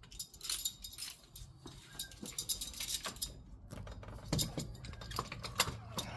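Irregular metal clicks and clinks of a socket and ratchet extension tool being worked onto the belt tensioner bolt.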